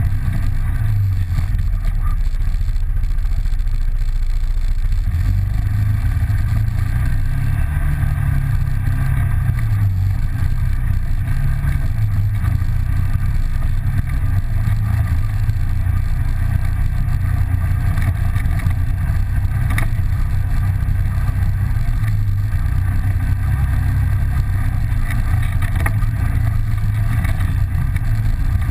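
Off-road vehicle engine running steadily under way along a rough dirt trail; its low drone rises and falls a little with the throttle, with a few brief knocks in the later part.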